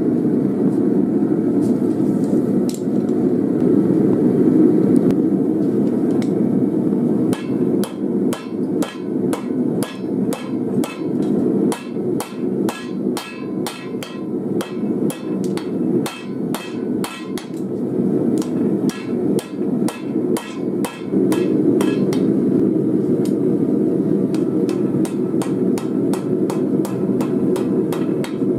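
Hand hammer striking a red-hot blade forged from a steel file on an anvil. After several seconds a steady run of blows begins, about two to three a second, over the steady noise of the forge burner running.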